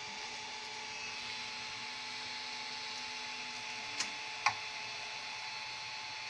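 3D printer resuming its print: the steady whir of its cooling fans, with a faint low hum from the stepper motors that shifts in pitch as the print head moves. Two sharp clicks about four seconds in, half a second apart.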